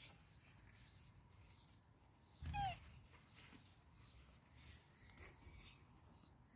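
A male tortoise gives one short squeak about two and a half seconds in, the call males make while courting and mounting a female; otherwise only faint background.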